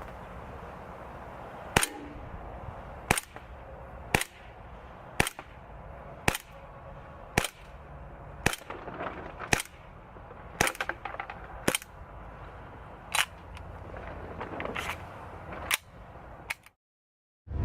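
ASG CZ 75 SP-01 Shadow gas blowback airsoft pistol firing single shots, each a sharp crack of gas and the slide cycling. There are about a dozen shots, roughly one a second.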